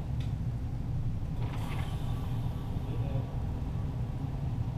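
Steady low mechanical rumble, with a faint click just after the start and a brief hiss about a second and a half in.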